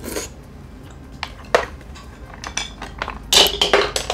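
Chopsticks dropped, clattering in a quick run of sharp clinks about three seconds in, after a few lighter utensil clicks.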